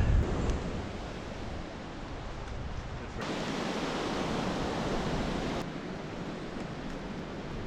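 Steady rushing outdoor noise with no speech, louder for about two seconds in the middle, where it cuts in and out abruptly.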